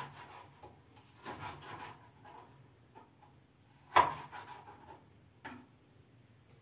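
Knife cutting frozen meat on a cutting board: scattered knocks and a stretch of scraping, with one sharp, loud knock about four seconds in.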